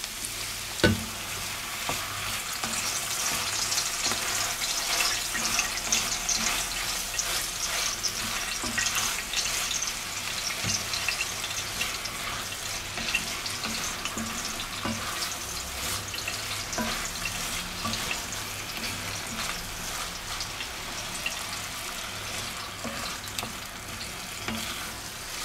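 Diced vegetables and tomato paste sizzling in an enamel pot as a splash of broth hits the hot pan, with a wooden spoon scraping and stirring through them. A single sharp knock comes about a second in. The sizzle is strongest over the first several seconds and then eases.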